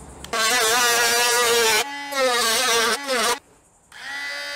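Dremel-style rotary tool fitted with a cutoff wheel, its motor running at high speed as a high-pitched whine. The pitch wavers and sags a couple of times. About three and a half seconds in, the tool cuts out for half a second and then spins back up to a steady whine.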